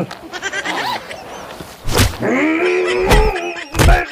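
A man's drawn-out groaning cry, falling and then rising in pitch, broken by a few dull thuds.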